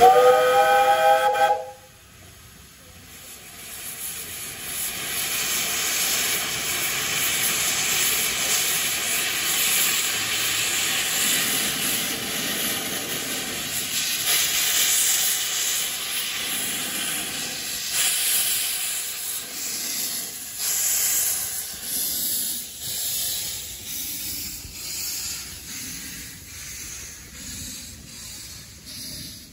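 Narrow-gauge steam locomotive giving a short chord whistle, then a loud steady hiss of steam from its open cylinder drain cocks as it starts its train away; the hiss fades in the later part, with faint regular beats as the coaches roll past.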